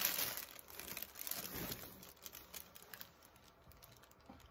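Light rustling and crinkling of packaging being handled, dying away to near quiet after about two seconds.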